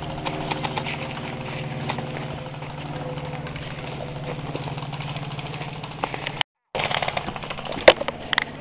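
Airsoft electric rifle firing on full auto: a long, steady, rapid rattle that stops suddenly about six and a half seconds in. A few sharp cracks follow near the end.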